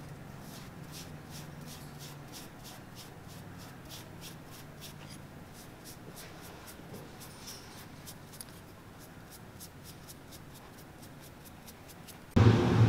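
Small paintbrush stroking black edge dressing along the leather sole edge of a cowboy boot: quick scratchy strokes about three a second that fade out after about nine seconds. A louder steady hum cuts in suddenly near the end.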